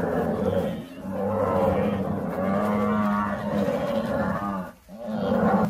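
A herd of wild cattle bellowing, with long pitched calls following one another with only short gaps, and a brief pause about five seconds in before another call.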